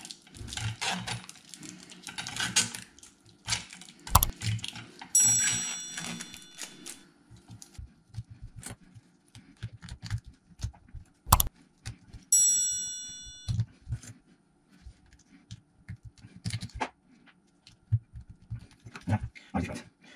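Thin steel E-I transformer laminations clicking and clinking as they are handled and pushed into a freshly wound coil bobbin. Twice a sharp knock is followed by a bright metallic ring from a struck lamination, about five and twelve seconds in.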